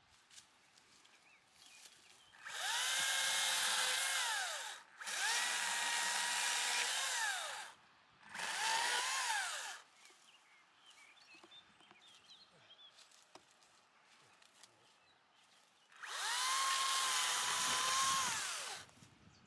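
Small petrol engine of a garden power tool revved up in four bursts, each rising quickly in pitch, held steady, then falling away as the throttle is released, with long quiet gaps between the last two.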